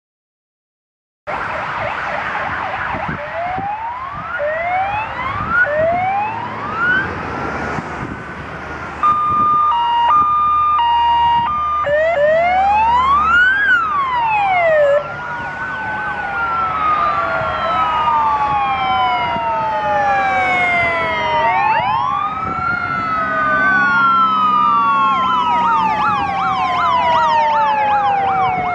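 Sirens of a convoy of fire engines, starting about a second in: several electronic sirens wailing up and down at once and overlapping. About nine seconds in, a two-tone hi-lo siren alternates briefly among them.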